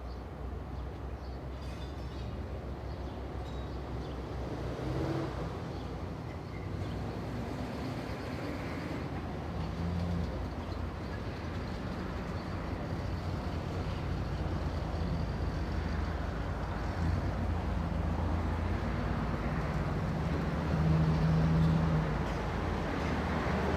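Low rumble of a vehicle engine, with a steady hum, slowly growing louder and loudest shortly before the end.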